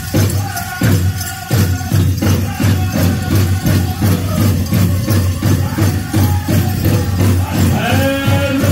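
Powwow drum: a large drum struck in a steady beat about twice a second, with voices singing a falling melodic line over it near the end.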